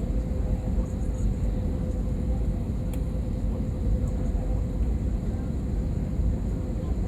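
Steady cabin noise inside an Airbus A320: a dense, even rumble of engines and airflow with a thin steady hum running through it.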